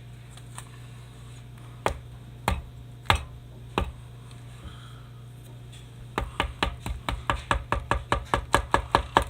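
Sharp knocks on a firework mortar shell being emptied of its stars: four separate knocks, then a quick run of about sixteen taps, roughly five a second.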